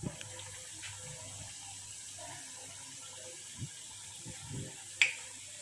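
Mathri deep-frying in hot oil in a steel kadai, a steady sizzle. A few soft knocks and one sharp click about five seconds in.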